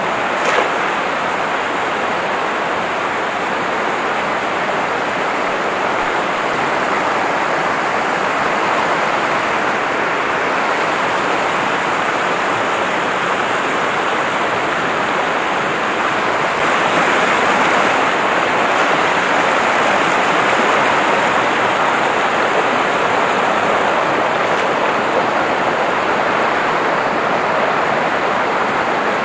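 River water rushing over and around rocks, a steady noise that grows a little louder about 17 seconds in. A brief sharp sound about half a second in.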